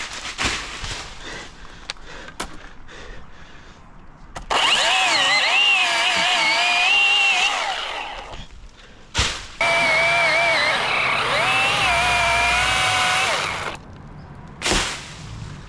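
Chainsaw cutting branch wood in two long runs, its whine wavering in pitch as the chain bites, with a quieter pause between them. Two short sharp bangs break in, one in the pause and one near the end.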